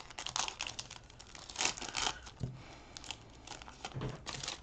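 Wrapper of a trading card pack crinkling and tearing as hands open it, in short crackling bursts that are loudest about two seconds in.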